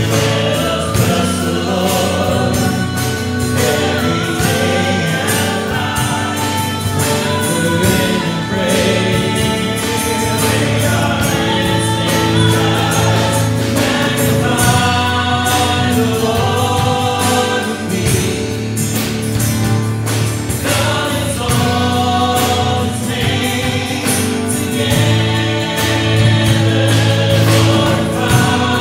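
Live worship music: a woman singing lead into a microphone over a drum kit, piano and acoustic guitar, played continuously.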